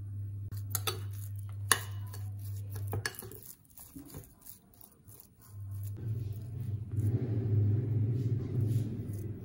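Metal spoon clinking and scraping against a glass bowl while stirring fish paste: sharp clicks, one loud one near two seconds, over a steady low hum. From about six seconds in, a louder low rumble takes over.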